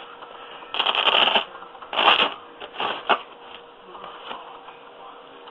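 Carpet being cut with a utility knife: three short scraping strokes, the first the longest, over a faint steady hum.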